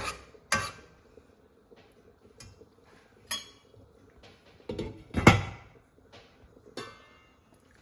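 Kitchen utensils and cookware knocking and clinking: a handful of separate knocks, the loudest about five seconds in.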